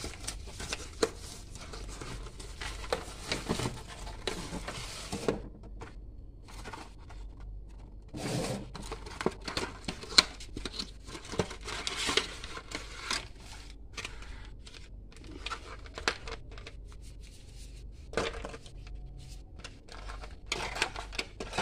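Cardboard and paperboard packaging being opened and handled: irregular rustling, crinkling and tearing with scattered light clicks and taps, in clusters with a quieter pause about five seconds in.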